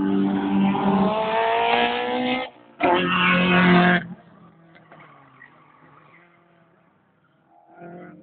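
Drift car's engine revving hard with its pitch climbing, mixed with tyre squeal as it slides through a corner. The sound cuts off abruptly about two and a half seconds in, comes back loud for about a second, then drops to a faint engine sound in the distance.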